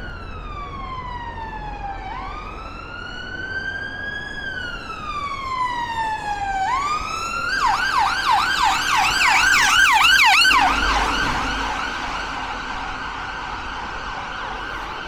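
Emergency vehicle siren on a city street: a slow wail rising and falling, switching about seven seconds in to a fast yelp of roughly four sweeps a second, loudest near ten seconds in and then fading.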